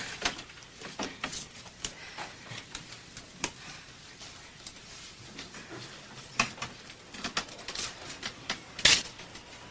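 Scattered, irregular light clicks and knocks over a low background hiss, with two louder knocks about six and a half and nine seconds in.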